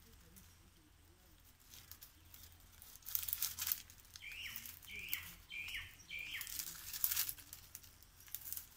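Dry rustling and scraping while a man climbs a palmyra palm's fibrous trunk, loudest from about three seconds in. In the middle of it a bird gives four short chirps, each rising then falling, evenly spaced.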